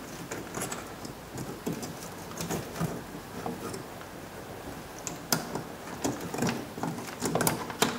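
Light clicks and rustling of a plastic wiring connector and its wires being handled in an open car door, with a sharper click about five seconds in and a run of small clicks near the end.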